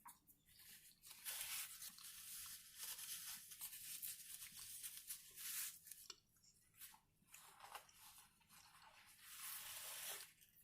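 Crisp crinkling and crunching from potato chips and their bag being handled and eaten, in two long stretches.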